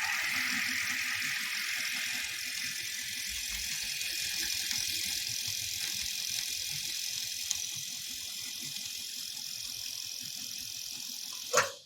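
Sewing machine driven by a Kindyne 750S servo motor set to 2000 RPM, running steadily at its normal full sewing speed with an even mechanical buzz. It stops suddenly near the end.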